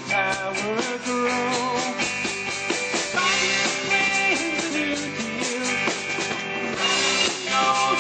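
A rock band playing: electric guitar and drum kit, with a bending lead melody over the top.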